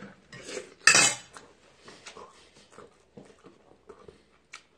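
A man eating: a brief clatter of chopsticks at a stainless steel bowl and a mouthful taken in the first second, then chewing with many small wet mouth clicks and smacks.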